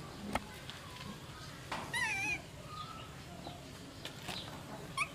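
A high-pitched wavering chirp about two seconds in and a short chirp near the end, over a low background, with a sharp click shortly after the start.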